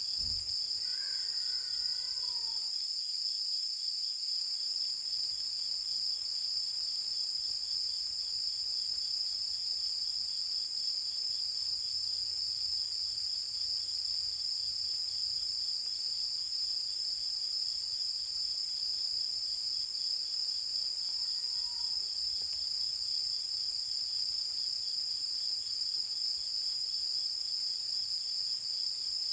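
Night-time chorus of singing insects: a steady, unbroken high-pitched trilling with a fainter pulsing chirp beneath it. A brief chirping call sounds about a second in, and a fainter one about two-thirds of the way through.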